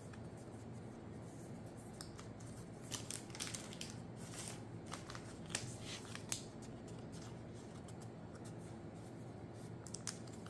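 Faint rustling and soft clicks of a trading card being handled and slid into a plastic card sleeve, with a cluster of sharper clicks between about three and six and a half seconds in and another near the end.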